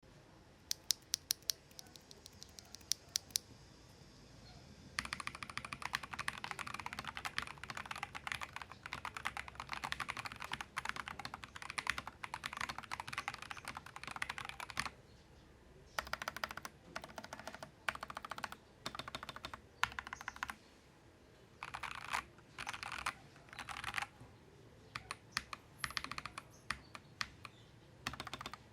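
Stock, unlubed JWK Lagoon tactile mechanical keyboard switches being typed on under blank OEM-profile keycaps. A few single key presses come first, then about ten seconds of fast continuous typing, then short bursts of typing with pauses between them. The switches sound thocky, with a really audible spring ping that comes from their being unlubed.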